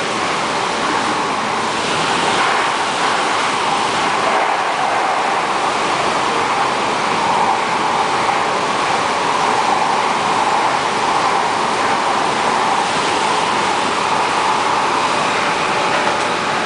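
MTR K-Train running at speed through a tunnel, heard inside the car by the doors: a loud, steady rush of wheel-on-rail and tunnel noise that swells slightly toward the middle.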